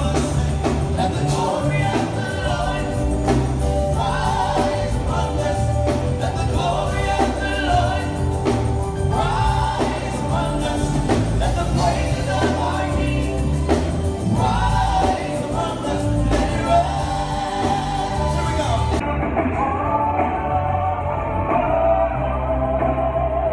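Background music: a gospel song with sung vocals over a steady bass and beat.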